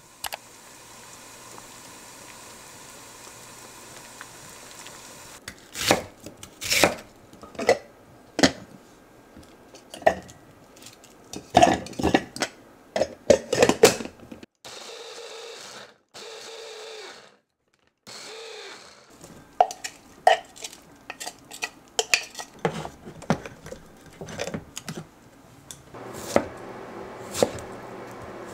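Water boiling in a saucepan with a steady hiss, then scattered sharp knocks of kitchen work. An electric mini chopper whirs for about three seconds, mincing red onion, then runs again briefly. Near the end comes a knife cutting through a peeled tomato onto a wooden board with irregular knocks.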